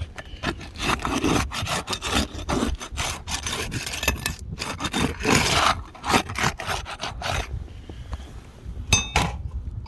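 Irregular gritty scraping and rubbing on asphalt roof shingles, dense for most of the stretch and then easing off. A short metallic clink about nine seconds in.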